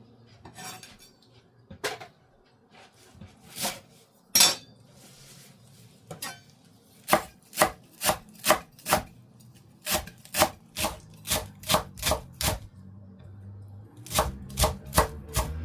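Kitchen knife chopping food on a cutting board: a few scattered cuts, then a steady run of about two to three chops a second, and a quicker burst near the end.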